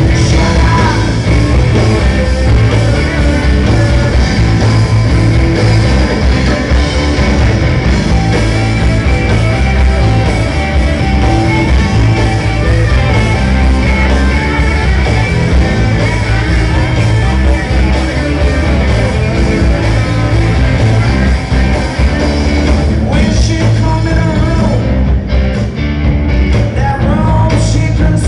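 A live rock band playing loud, with electric guitar, bass guitar and Hammond organ, and a man singing.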